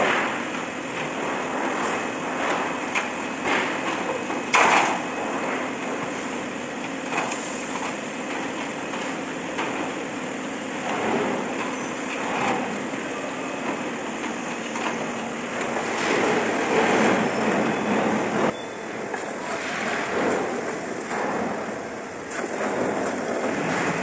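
Factory workshop noise: a steady machine hum, with scattered knocks and clatter from stainless-steel water-heater tank casings being handled. One sharp knock comes about four and a half seconds in.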